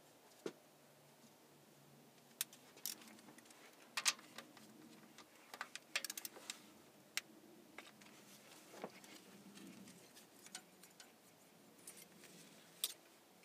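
Scattered light metallic clicks and clinks of a wrench and feeler gauge on the rocker arm adjusting screw of a Cummins 5.9 12-valve diesel, setting the valve lash clearance. The clicks come at irregular intervals, the loudest about four and six seconds in.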